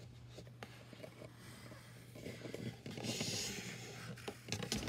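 Faint pencil strokes on paper over a clipboard. The scratching starts about two seconds in and is loudest around three seconds in, with a few light clicks near the end over a low steady hum.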